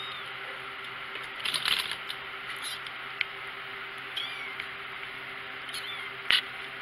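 Four-week-old kittens giving faint, short, high mews over a steady low hum, with a burst of rustling about a second and a half in and a sharp tap near the end.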